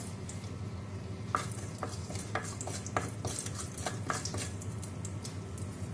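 Whole cumin, fennel seeds and peppercorns sizzling and crackling in hot oil in a clay pot while a spatula stirs them, with irregular sharp clicks and taps against the pot, several a second.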